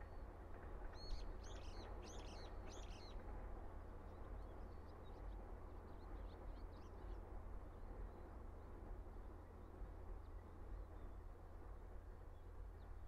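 A bird chirps four times in quick succession about a second in, then gives fainter scattered chirps, over a steady low background rumble.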